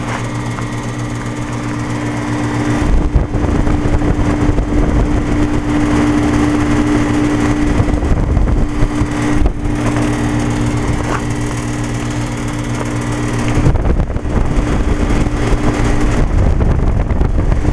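Outdoor heat pump unit running loudly in a defrost cycle: a steady compressor hum under a dense rush of noise. The deep rumble grows about three seconds in, and the hum breaks off and the noise swells again near fourteen seconds.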